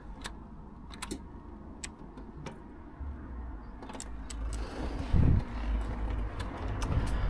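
Irregular sharp clicks and a jangle of keys as the 1995 Ducati 748SP's ignition is tried and the bike fails to start, a fault later cured by wiggling its cables, so a poor electrical connection. A low rumble builds from about halfway through.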